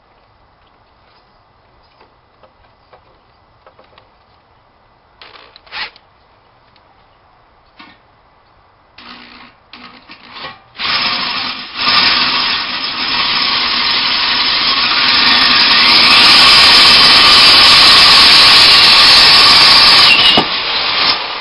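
Power drill boring a hole to enlarge a pilot hole. A few short trigger pulls come about nine to eleven seconds in, then it runs loud and steady for about ten seconds and cuts off sharply near the end. Before that there are only faint scattered clicks.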